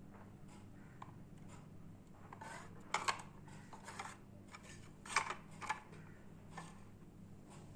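Light plastic clicks and taps of a small toy refrigerator being handled, with two louder bursts of clicking about three and five seconds in, over a steady low hum.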